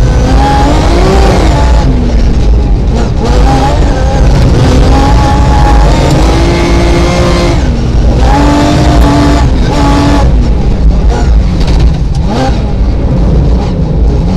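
Rally car engine heard from inside the cabin under hard acceleration. The pitch climbs, holds and drops again several times as it changes gear, over a steady heavy low rumble.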